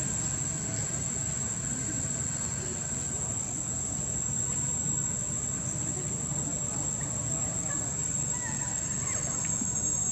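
Steady high-pitched insect drone over a constant low background rumble, with a few faint short chirps near the end.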